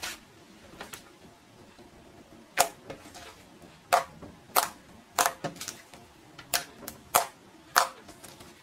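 Homemade slime being squeezed and worked by hand, giving a string of sharp clicking pops at uneven intervals, about one every half second to a second.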